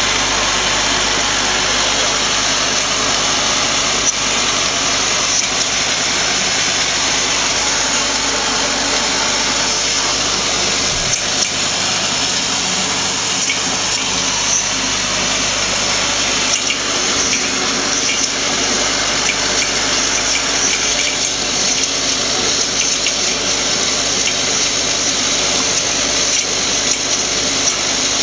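Vibratory bowl feeder running: a steady, dense rattle of many small plastic pencil clips shaking in the stainless-steel bowl and travelling along its feed tracks.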